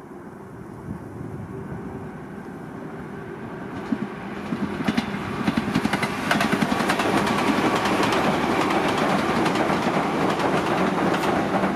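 LEGO model train running on plastic track, growing steadily louder as it approaches, with its wheels clicking rapidly over the track joints for the second half as it passes close by.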